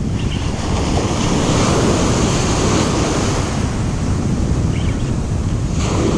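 Ocean surf breaking and washing up a sandy beach close by, a steady loud rush that swells partway through, with wind buffeting the microphone.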